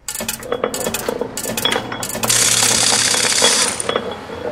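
Mechanical sound effects of gears and machinery: a run of quick, irregular clicks and clanks, then from about two seconds in a dense, steady clattering machine noise with a low hum, which drops away near the end.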